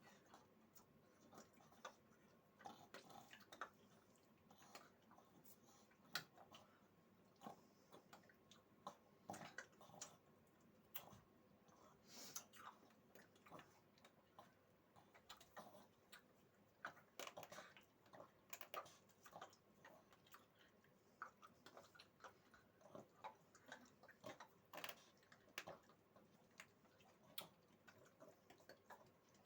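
Near silence with faint, irregular small clicks and ticks scattered throughout.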